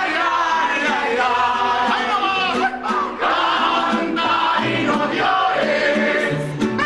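Mariachi band playing with several voices singing together.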